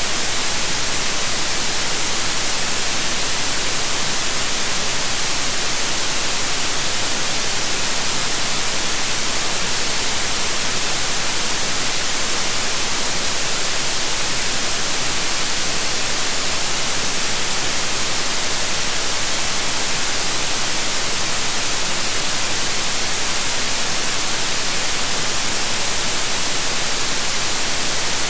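Steady white noise: an even, unchanging hiss with no pitch, rhythm or events.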